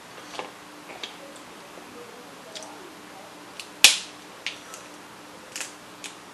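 Crab leg shell being cracked and snapped apart by hand: a string of short sharp cracks, the loudest about four seconds in.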